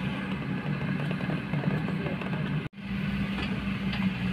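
Diesel engines of Kobelco hydraulic excavators running steadily at a working pace, a constant low hum. The sound cuts out for an instant about two-thirds through, then carries on, with a few faint knocks near the end.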